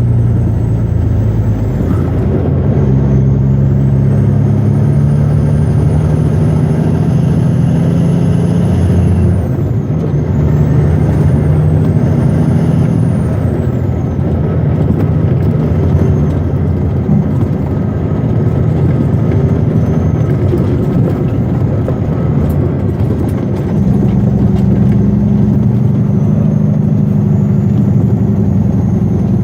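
Western Star logging truck's diesel engine pulling steadily, heard from inside the cab, its note shifting down about a third of the way in and back up near the end, with a thin high whistle rising and then falling away early on.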